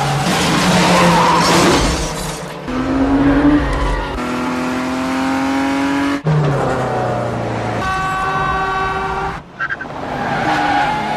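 Cars racing in a chase: engines revving hard and rising in pitch, breaking off sharply about six seconds in, with tyres squealing and skidding.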